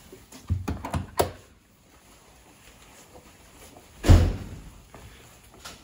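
A door thudding shut about four seconds in, the loudest sound, with a short ringing decay. It follows a few quick knocks and clatters about a second earlier, and a light click comes near the end.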